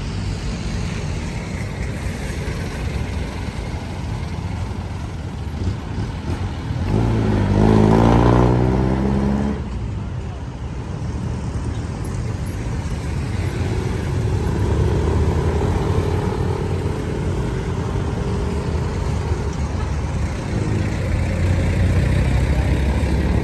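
City street traffic: a steady rumble of passing vehicles, with one louder vehicle's engine going by about seven seconds in for a couple of seconds.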